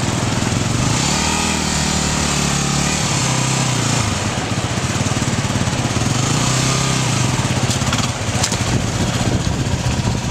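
Dual-sport motorcycle engine running and revved up twice, each rev lasting about two seconds.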